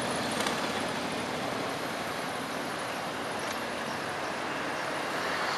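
Cruiser motorcycles riding past, a steady blend of engine and road noise that swells slightly near the end.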